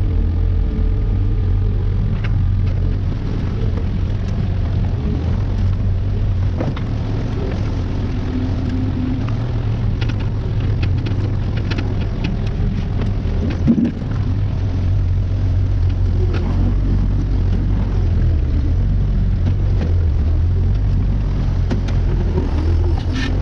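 A compact construction machine's engine running steadily under work, with scattered knocks and clanks and a brief louder surge about halfway through.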